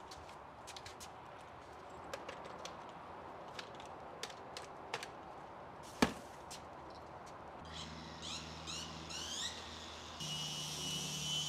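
Scattered clicks and knocks of something being handled, with one sharp knock about halfway. Then a small motor starts humming with a few rising whirs and settles into a steady high whine near the end.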